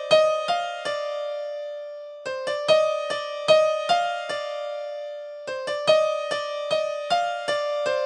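Yamaha SHS-500 Sonogenic keytar playing a piano-like keyboard tone with added reverb: a short melodic phrase of separate notes that start sharply and fade, played three times.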